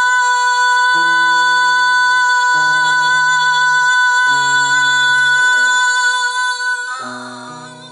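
Live acoustic rock band music: a long held note over a few changing guitar chords, the sound dying away near the end as the song closes.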